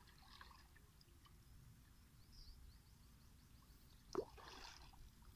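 Mostly near silence; about four seconds in, a short splash, then water streaming and dripping as a cast net is lifted out of the pond.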